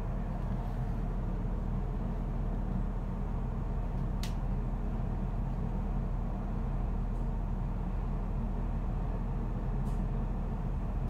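Steady low rumble of a passenger train running along the track, heard from inside the carriage, with one short sharp click about four seconds in.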